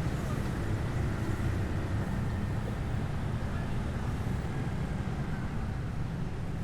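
City street traffic: a steady low rumble of vehicles passing.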